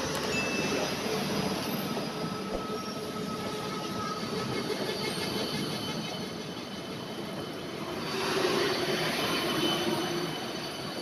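Indian Railways passenger coaches running past at speed close by: a steady rumble of wheels on rail with thin squealing tones over it, growing louder about eight seconds in.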